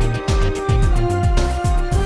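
Closing music with a quick, steady drum beat under held notes.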